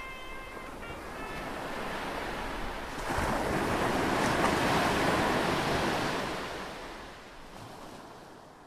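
A rushing, wind-like noise that swells sharply about three seconds in, then fades away steadily. The last notes of the music die out in the first second or so.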